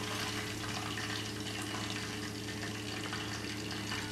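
Chicken 65 pieces deep-frying in a saucepan of oil at about 350°F, giving a steady sizzle, over a steady low hum.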